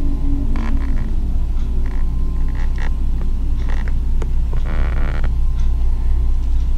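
Steady low rumble, with a few light clicks and rustles scattered through it.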